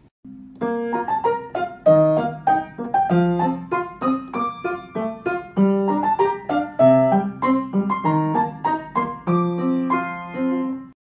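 Background piano music: a run of quick, evenly paced notes that fade after each strike.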